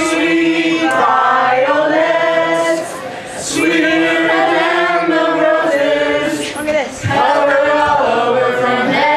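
A small group of men and women singing a song together, in phrases with short breaks between them.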